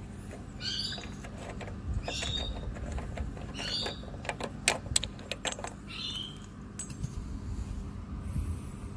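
Spark plug being unscrewed from a lawnmower engine with a tubular plug spanner and a screwdriver bar: light metal clicks and scrapes, with a quick cluster of sharp clicks about four to five and a half seconds in. A bird calls over it again and again, about every second and a half.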